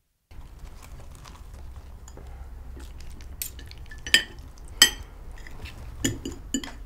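Cutlery and dishes clinking at a dinner table as food is served, a few sharp clinks standing out about four and five seconds in, over a low steady hum that starts just after the opening silence.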